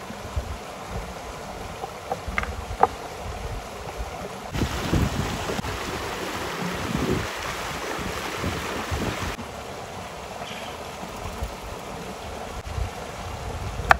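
Outdoor ambience of river water flowing, with wind buffeting the microphone in low rumbling gusts. There are a few light clicks a couple of seconds in, and a louder stretch of rushing noise in the middle.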